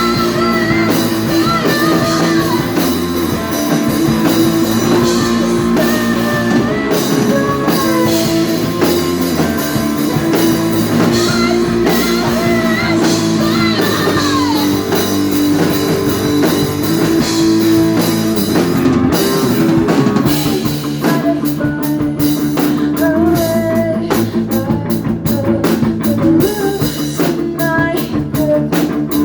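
Rock band playing live: guitar and drum kit with singing, the drums hitting in a tight, even pattern through the last third.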